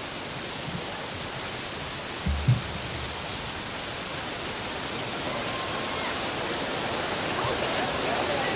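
Arena crowd cheering and hollering as a steady roar that swells gradually, with a single low thump about two and a half seconds in, before the band starts.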